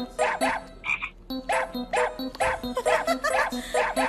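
Background music with a steady beat, about two strokes a second.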